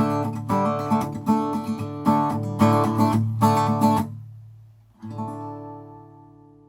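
Background music of strummed acoustic guitar, which stops about four seconds in; a single final chord follows about a second later and rings out, fading away.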